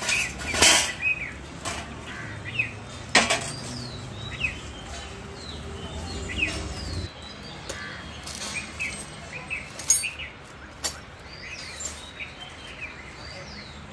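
Small birds chirping throughout, in many short quick calls, with a few sharp knocks breaking in. A low steady hum underneath stops abruptly about halfway.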